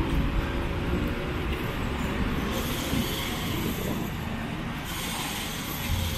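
City road traffic: cars, motorcycles and a bus passing, a steady engine and tyre rumble.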